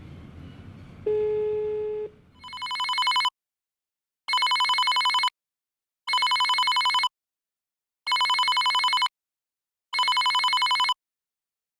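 A telephone ringing. A single plain tone of about a second, then five regular rings of about a second each with short gaps between them, in a warbling old-style telephone ring.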